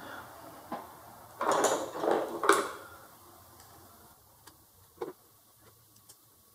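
Hands and a screwdriver working a hose clamp on a Honda Recon ATV's carburetor intake. A burst of scraping and rustling comes about a second and a half in, followed by a few light metallic ticks.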